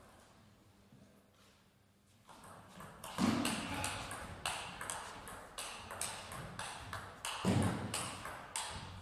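Table tennis rally: the ball clicks sharply off the bats and the table in quick alternation, about two to three hits a second, starting about two seconds in. Two low thuds come in among the hits.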